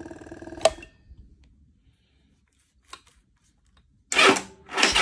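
A sharp click, after which a faint steady hum stops. Near the end, a long-unused carbureted motorcycle engine is cranked and fires: a sudden loud burst, then fast, uneven pulsing as it catches and starts running.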